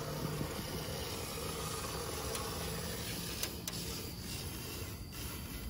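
Fluid Film aerosol can spraying through a long thin extension wand into a truck's body cavity. The nozzle is held down as the wand is slowly drawn out, giving a steady continuous hiss.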